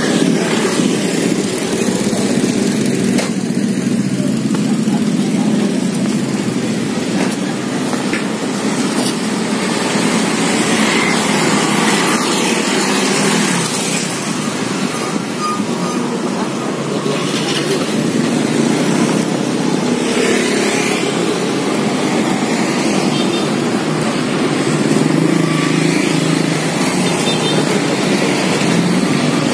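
Steady road traffic noise as small motorcycles and motor scooters pass along the street, their engines swelling and fading a few times.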